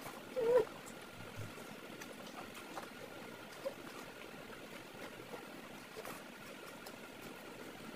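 Close-miked eating sounds: a person chewing a mouthful of rice and oily curry eaten by hand, with small wet mouth clicks throughout and a short pitched mouth sound about half a second in.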